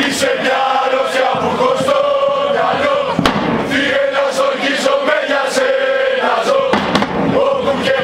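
Football supporters chanting in unison, many voices together, with sharp regular beats keeping time.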